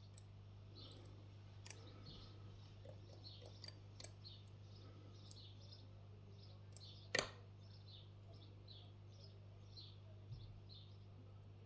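Faint, scattered clicks and taps of picking tools working in a Miwa E6 magnetic dimple lock, a few isolated ones with a double click about seven seconds in the loudest, over a steady low electrical hum. Repeated faint high chirps run throughout.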